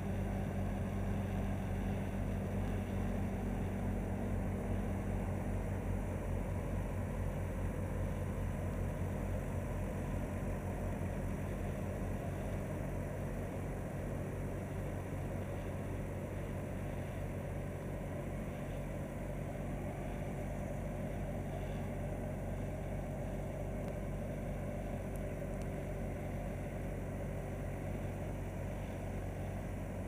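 Bobcat A300 skid steer's diesel engine idling steadily.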